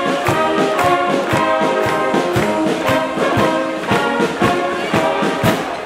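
Brass band music: trombones and trumpets playing a tune over a steady drum beat.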